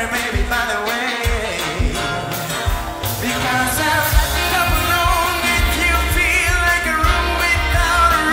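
Big band playing live, with a vocalist singing over bass and drum kit.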